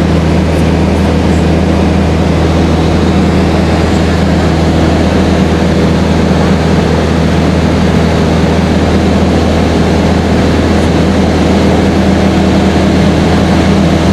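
Airplane engine in flight, a loud, steady drone with a low hum, heard from inside the cabin.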